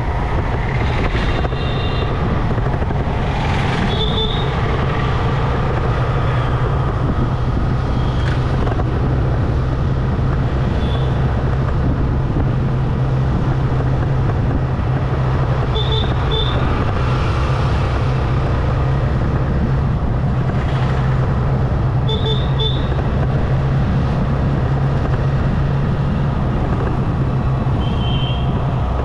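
Motorcycle engine running steadily at cruising speed, with wind and tyre noise from the road. A few short high beeps, some of them doubled, come now and then.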